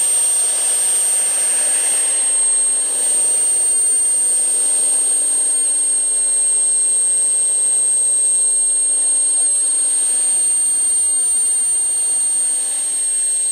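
Twin model jet turbines of a large RC Airbus A330 model running as it taxis: a steady rushing jet sound with a piercing high whine on top, the whine dipping slightly in pitch a few times.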